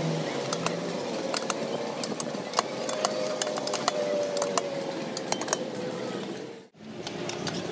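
Irregular metallic clicks and clinks of a long-handled socket wrench turning the bolts that hold a tractor wheel's centre disc to its steel rim, over a steady low hum. The sound drops out for an instant near the end.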